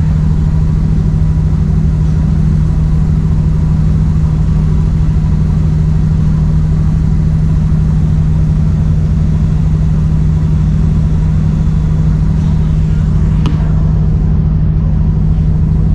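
Diesel passenger train running, heard from inside the carriage: a steady, loud engine and rolling drone with a low hum, and a single click near the end.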